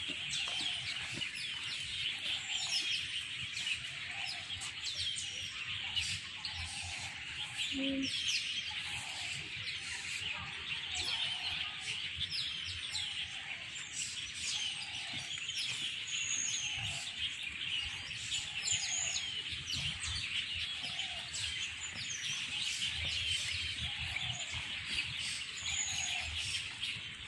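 Birds chirping and calling in the trees: a dense chatter of many small birds, with a lower call repeating about every second or so.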